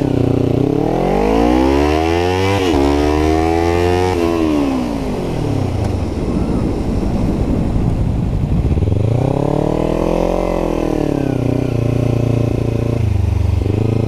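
Kawasaki Ninja 300's parallel-twin engine with a Yoshimura full exhaust pulling away under throttle, pitch rising and dropping sharply at a gear change about two and a half seconds in, then climbing again before the throttle rolls off. It picks up once more, peaking around ten seconds in, then eases back to a steady lower run.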